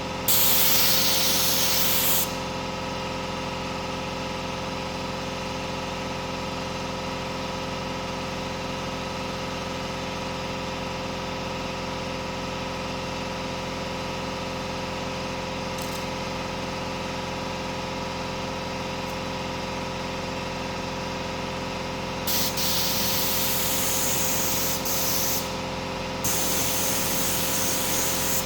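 Hissing bursts of a compressed-air spray gun: one of about two seconds right at the start, then a longer spell near the end broken by short pauses, over a steady mechanical hum.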